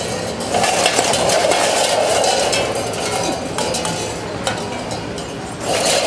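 Metal cans and small tin pots hung on a costume, struck and jostled with thin sticks: irregular metallic clinks and clanks.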